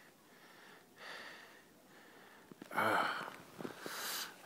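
A person breathing and sniffing close to the microphone, in short breathy puffs, with a louder, partly voiced breath about three seconds in.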